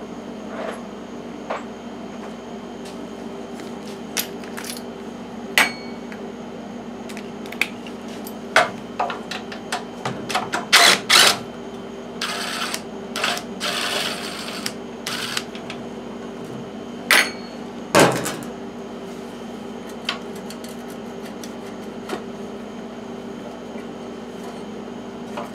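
Tools clicking and knocking on a push-mower engine as the carburetor is being unbolted, with a DeWalt cordless driver whirring for about three seconds near the middle. A steady hum runs underneath.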